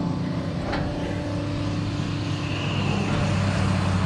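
An old farm fuel-tank transfer pump running steadily with a low hum while it pumps fuel through a hose. The owner calls the pump about shot and slow.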